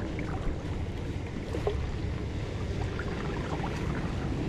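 Steady wind rumble on the microphone with water noise at a beach shoreline, and a few faint small ticks.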